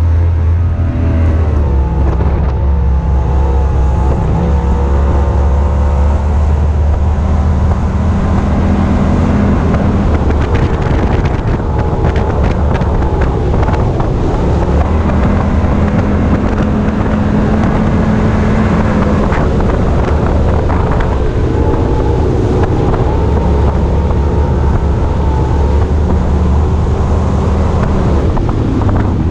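Mercury 300XS outboard, a V6 two-stroke, pushing a bass boat at high speed: a loud, steady engine drone whose pitch shifts slightly now and then. Heavy wind buffets the microphone, and a few short knocks come around the middle.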